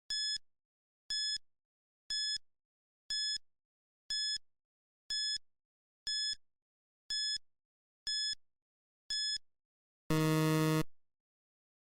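Electronic countdown-timer sound effect: a short high beep once a second, ten in all, then a longer, louder low buzzer tone near the end that marks time running out.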